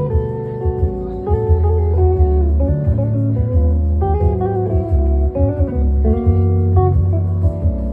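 Guitar music: plucked notes over a steady bass line, with a bluesy feel.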